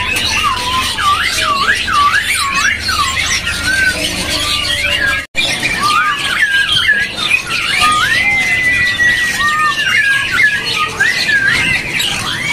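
Caged black-throated laughingthrush (white-cheeked Poksay Hongkong) singing: a run of loud, swooping, looping whistled notes, with one long held whistle about eight seconds in. The sound drops out for an instant about five seconds in.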